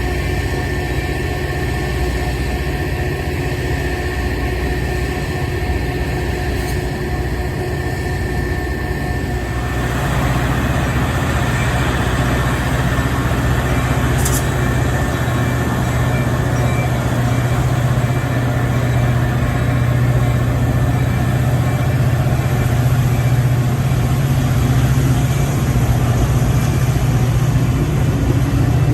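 Diesel locomotive engine running steadily with a low drone, growing louder about ten seconds in as it picks up power.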